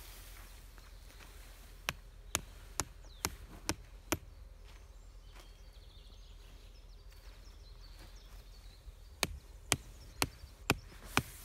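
Tent peg being driven into the ground with a mallet: two runs of about six sharp strikes each, roughly half a second apart, with a pause of several seconds between them.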